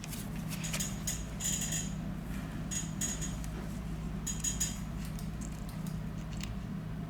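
Small metal repair tools clicking and scraping against the iPhone 7's parts in short clusters, a few bright taps a second apart, over a steady low hum.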